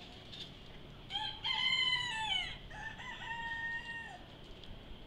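A rooster crowing once, starting about a second in: a first phrase that drops in pitch at its end, a brief break, then a long held final note.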